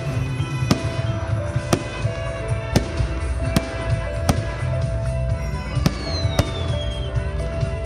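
Fireworks display: sharp bangs of bursting shells about once a second, with a falling whistle a little past the middle, over music.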